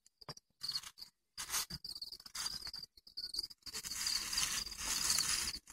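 A cricket chirping in short repeated trills. From about a second and a half in, it is joined by rustling and scraping as a plastic tub of perlite incubation medium is handled and its lid fitted.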